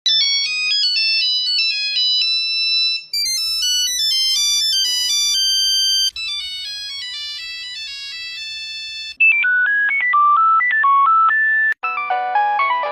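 A string of Nokia mobile phone ringtones: five short electronic melodies of about three seconds each, one cutting straight to the next.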